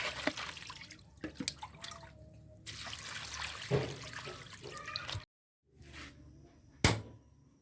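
Water sloshing and dripping with irregular handling clatter and knocks. The sound cuts off abruptly about five seconds in, and a single sharp knock follows near the end.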